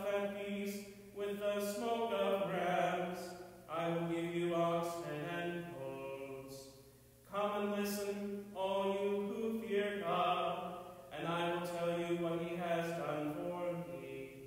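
A man chanting a liturgical text solo on held, steady pitches. It comes in phrases of one to three seconds with brief breaths between them.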